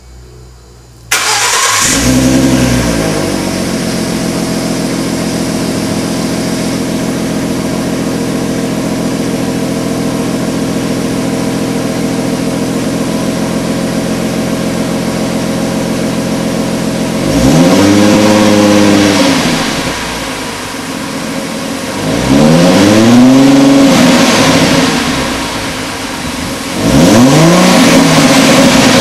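2011 Ford Mustang V6's 3.7-litre V6 through its stock Ford mufflers. It is started about a second in, flares up, then settles to a steady idle. It is revved three times in the second half, each rev rising and falling back to idle.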